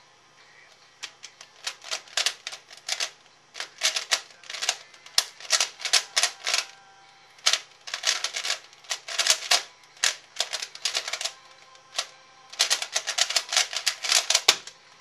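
C4U 3x3x3 speedcube being turned very fast in a timed solve: rapid runs of plastic clicking and clacking, starting about a second in and broken by short pauses about three, seven and twelve seconds in, before stopping near the end.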